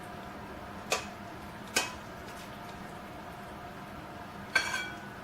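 Three sharp clinks of a kitchen utensil against cookware as cooked chicken is lifted from the pot into a container. The clinks come about a second in, just under two seconds in and near the end, and the last is the loudest, with a short metallic ring. A steady low hum runs under them.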